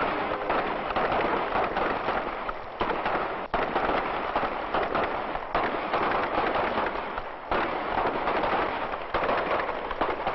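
Revolvers firing blanks in a staged western gunfight: many shots in quick succession, making a dense crackle with sharp jumps in loudness every second or two.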